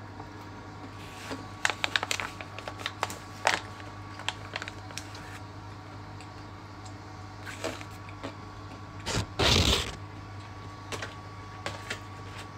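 Kitchen handling sounds while cooking: scattered light clicks and knocks of dishes and utensils, with a short louder burst of noise about nine seconds in, over a steady low hum.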